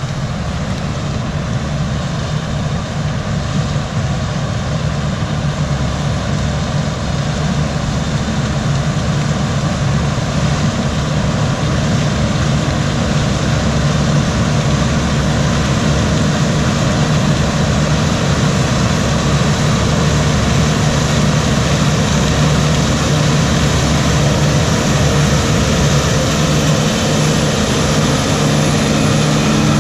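Heavy diesel farm machinery running steadily: a constant engine drone that grows gradually louder, with a steady low hum coming up near the end.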